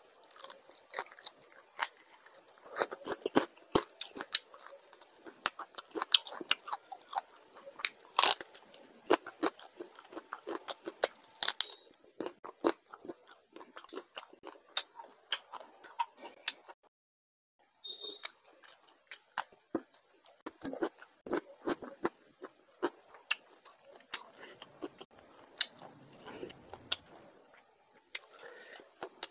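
Close-miked eating: a man biting and chewing curried prawns with rice, a quick run of sharp crunches and wet mouth clicks. A brief silence a little past halfway.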